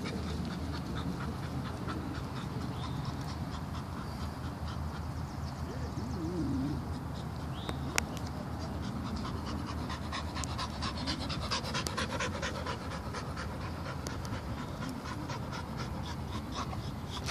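Dog panting close by, with light crackling and rustling that grows in the second half and one sharp click about eight seconds in.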